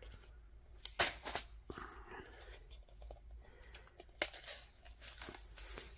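Fingers handling the stiff cardboard pages and flaps of a lift-the-flap board book: soft rubbing with a few sharp taps, the loudest just after a second in and about four seconds in.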